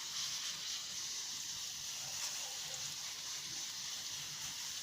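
Banana slices frying in hot oil in a pan, a steady sizzle.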